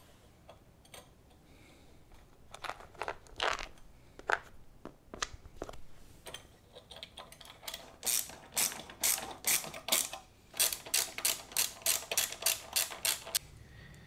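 Socket ratchet tightening the nut and bolt on a motorcycle exhaust clamp: a quick, even run of sharp ratchet clicks, about three a second, through the second half. A few scattered metal clicks come before it as the bolt and nut are fitted.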